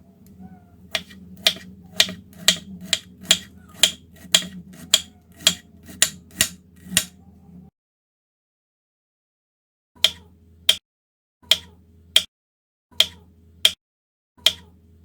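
Knife chopping on a cutting board: sharp, even strokes about two a second for several seconds, then a pause, then short runs of two chops each.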